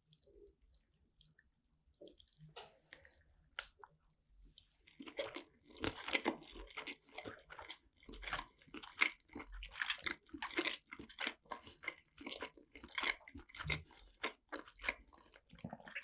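Close-miked wet chewing of yukhoe sushi (seasoned raw beef on rice): a few faint mouth clicks at first, then steady, rapid smacking chews from about five seconds in.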